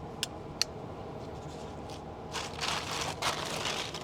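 Two light clicks, then a couple of seconds of crinkly rustling and scraping as the packaged marinated chicken is handled.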